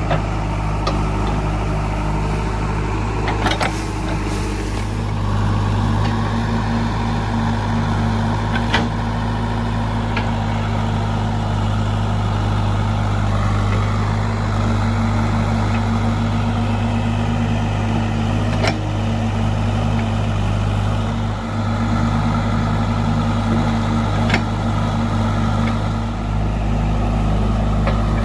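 JCB 3DX backhoe loader's diesel engine running steadily at working revs, picking up slightly about five seconds in. A few short sharp knocks sound over the engine, typical of the machine's bucket and arm working.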